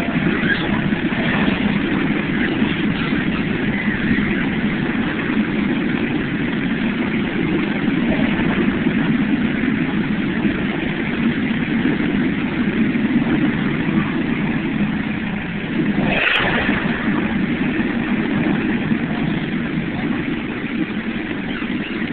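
Steady low roar of the Mirage volcano display: gas flames burning across the lagoon and water pouring down the artificial rock. There is one sharp click about two-thirds of the way through.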